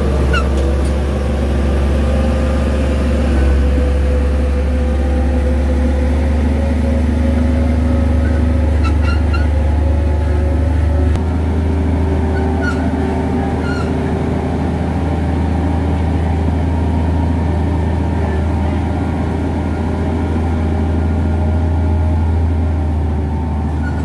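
Komatsu D58E crawler bulldozer's diesel engine running steadily as the dozer works and drives on its tracks, a loud low hum whose note shifts slightly about eleven seconds in.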